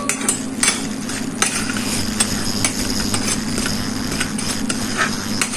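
Steel ladle stirring cumin seeds frying in butter in an aluminium pan, with irregular clinks and scrapes of metal on metal. A steady low hum runs underneath, the induction cooktop running.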